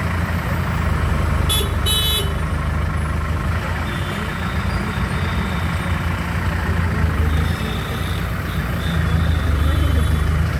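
Street traffic: vehicle engines idling and running steadily in a traffic jam, with two short horn honks about a second and a half in.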